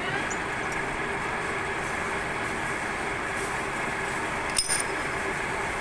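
Metal lathe running steadily with a constant hum, with a single sharp metallic clink about four and a half seconds in.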